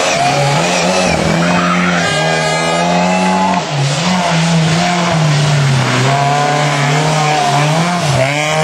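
Rally car engines revving hard through a stage corner. The engine note drops and climbs again several times as the drivers lift and change gear.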